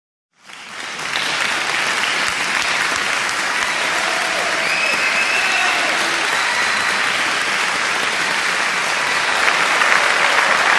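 Crowd applause, fading in within the first second and then holding steady.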